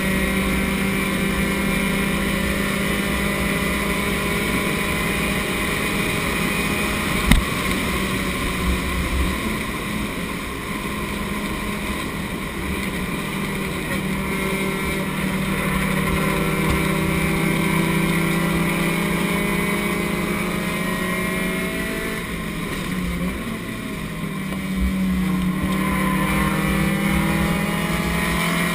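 Race car engine heard from inside the stripped cabin, running steadily at high revs. Its pitch and level dip about 22 seconds in, then climb again a few seconds later. A single sharp knock comes about seven seconds in.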